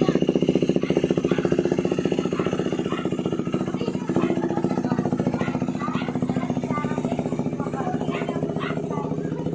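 KTM Duke 390's single-cylinder engine idling steadily through a Remus S-flow full exhaust system, with an even, rapid pulse and no revving.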